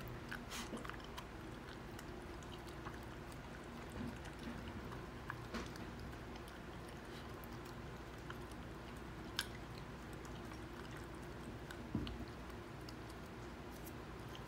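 Dog eating dry kibble from a ceramic bowl: scattered crunches of chewing and small clicks of kibble and teeth against the bowl, with one sharper click about nine seconds in.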